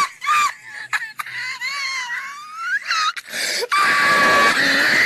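High-pitched, squeaky, voice-like wheezing sound with sliding pitch: two short squeals, then a wavering note that rises, then a long, steady squeal.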